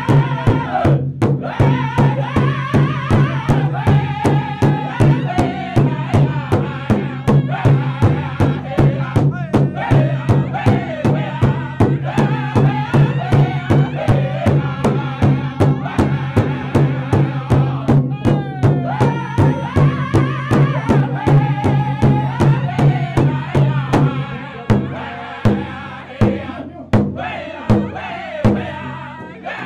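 Powwow drum group singing a grand entry song in high, chanted voices over a large bass drum struck in unison with a steady beat. From about 24 seconds in the beat thins to a few louder, separated strikes.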